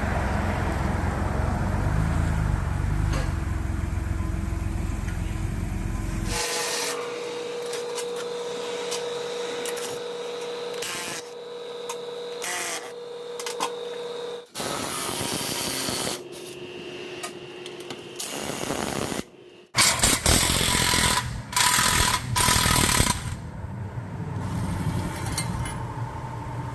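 Low road rumble of a vehicle under way for about six seconds, then, after a cut, auto-shop work sounds: hand and power tools clicking and running in short spells, loudest in a few bursts a little past the middle.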